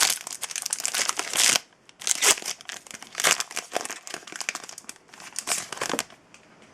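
Trading card pack wrapper being torn open and crinkled in the hands, a dense crackling with a brief pause about two seconds in, stopping about six seconds in.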